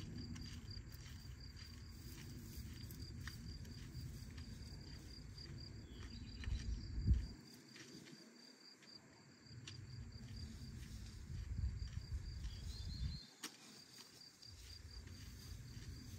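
Insects chirring in a steady, high, pulsing trill, over a low rumble of wind on the microphone that drops out briefly twice.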